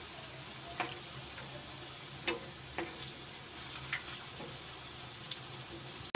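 Palm-pulp fritters (taler bora) sizzling as they deep-fry in hot oil over a medium flame, with a few short clicks and taps as a wooden spatula turns them in the pan.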